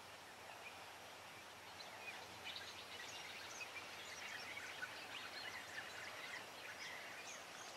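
Many small birds chirping and singing, a scatter of short high calls over a faint steady background hiss, busier from about two seconds in.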